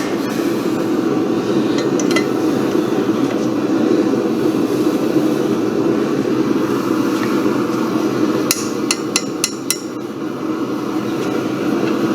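A hammer tapping on metal: a quick run of about six sharp strikes about eight and a half seconds in, over a steady rushing noise.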